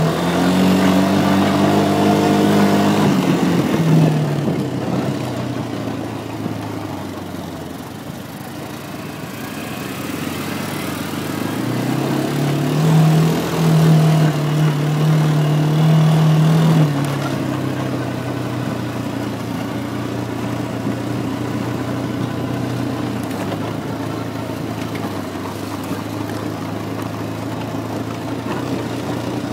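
Quad bike (ATV) engine running under changing throttle. It revs high at first and eases off after about four seconds. It climbs again to a second high-rev run from about twelve to seventeen seconds in, then settles to a steadier, lower note.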